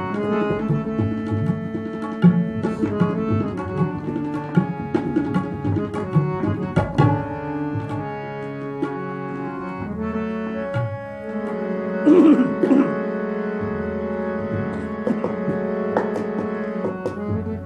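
Harmonium playing a melodic instrumental interlude of a ghazal with tabla accompaniment: held reed chords and changing notes over steady tabla strokes.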